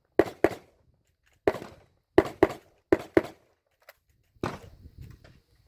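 Rapid gunfire: about eight sharp shots, mostly in quick pairs about a quarter second apart, with gaps of under a second between the pairs.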